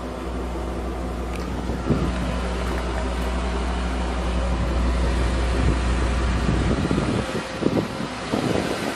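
A motor running with a steady low hum, which stops about seven seconds in; wind then buffets the microphone.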